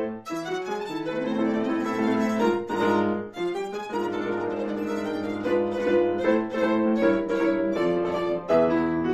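Instrumental music: a violin playing a quick-moving melody over an accompaniment.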